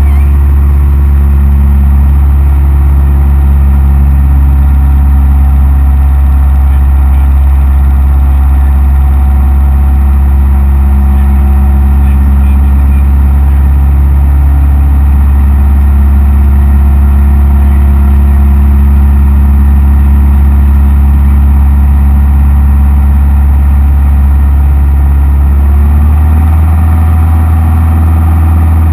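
Cessna 172M's four-cylinder Lycoming engine and propeller drone steadily, heard loud from inside the cabin. The engine note shifts about 26 seconds in.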